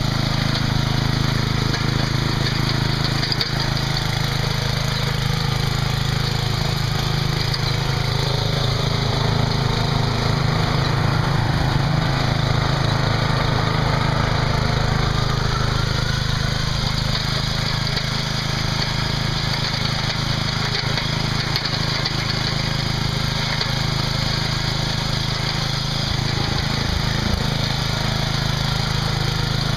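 Lifted riding lawn mower's engine running steadily at an even pitch.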